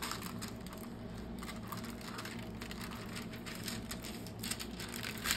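Faint rustling and crinkling of the clear plastic cover on a diamond painting canvas as hands pull it back and smooth it flat, over a steady low hum.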